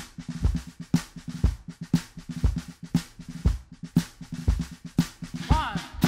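Drum kit playing a steady beat: bass-drum hits about twice a second with snare strokes in between. A wavering higher tone comes in near the end.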